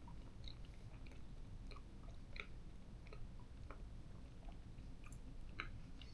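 Faint chewing of a mouthful of chocolate cake, with scattered small wet mouth clicks.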